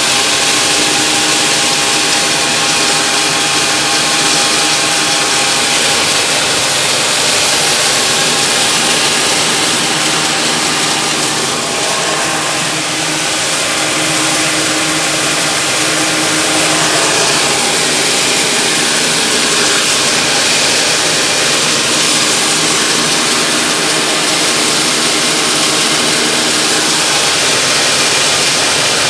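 Corn-grits milling machine running steadily, a loud, even mechanical whir with a dense hiss over it.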